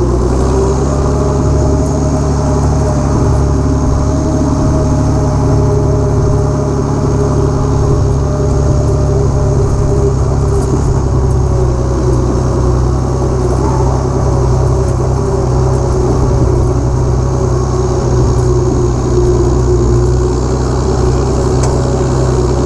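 International Harvester farm tractor's engine running at a steady, even speed as it drives along, the engine note holding constant with no revving.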